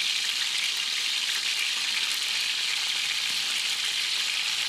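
Raw chicken pieces frying in hot ghee in a large metal pot, a steady sizzle.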